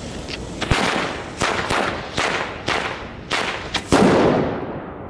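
Cipolla Trik Trak firecrackers going off: a run of about eight sharp bangs at uneven intervals, the last and loudest about four seconds in.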